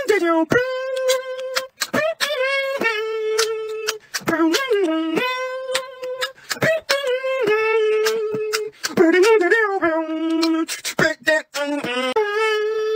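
Beatboxing: a single voice hums a melody in long held notes that bend down at the end of each phrase, cut between phrases by sharp mouth-made clicks and percussive hits.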